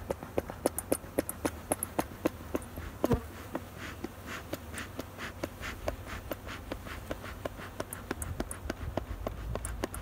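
Honeybees at an open hive being worked with a smoker: a rapid, irregular string of sharp clicks and taps, the loudest just after three seconds, over a low rumble.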